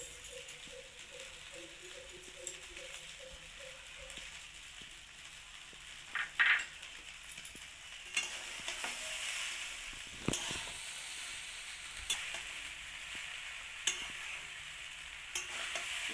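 Fried rice being stirred in a hot kadai with a spatula: steady sizzling, with the spatula scraping and knocking against the pan, the sharpest knocks about six and ten seconds in.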